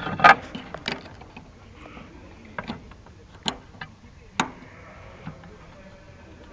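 Irregular sharp knocks and clicks of parts being handled and fitted back during reassembly, the loudest about a third of a second in.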